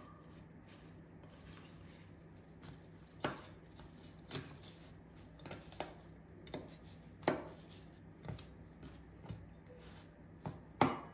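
Sharp, irregular knocks and taps on a wooden cutting board, roughly one a second, as fresh mint is trimmed and stripped from its stems; the loudest knock comes near the end.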